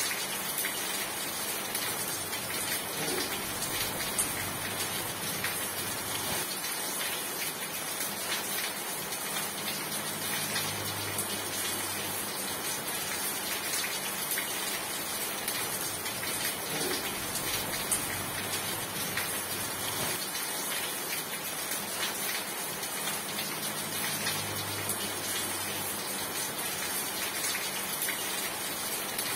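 Steady rain falling, an even hiss dotted with many sharp little drop taps. A faint low hum swells and fades twice beneath it.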